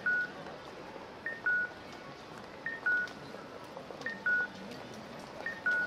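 Japanese audible pedestrian crossing signal sounding its electronic two-note cuckoo call, a short higher note then a longer lower one, about every second and a half, five times: the signal that the walk light is on. A steady street murmur of the crowd lies underneath.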